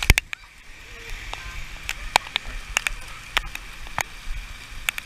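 Water drops hitting the camera housing in heavy rain: irregular sharp ticks, roughly two a second, over a steady hiss.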